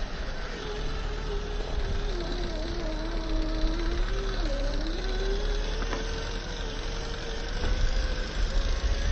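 Axial SCX10 III Gladiator RC crawler's Reedy 550 14-turn brushed motor and gears whining. The pitch dips and then slowly climbs again as the throttle changes, over a steady low rumble.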